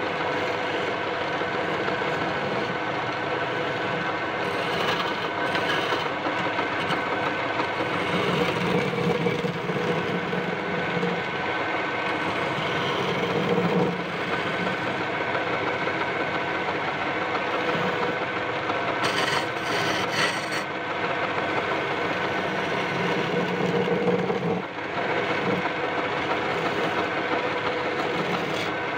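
Wood lathe running steadily while a flat hand-held turning tool scrapes against the spinning wooden spindle, smoothing its turned profile.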